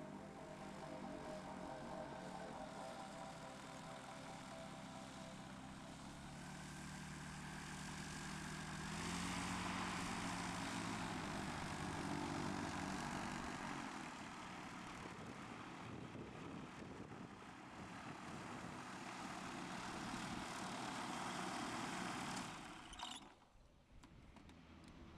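Gyroplane engine and pusher propeller running. The pitch climbs as the throttle opens, and it then runs loud and steady at take-off power. The sound drops away abruptly near the end.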